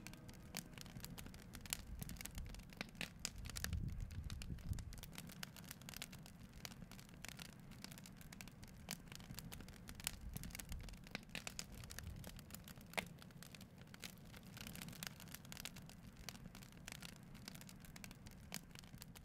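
Faint crackling of a wood campfire: scattered sharp pops and ticks over a low rumble.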